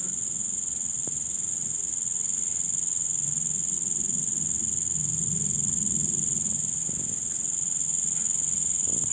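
Steady, unbroken high-pitched drone of insects calling.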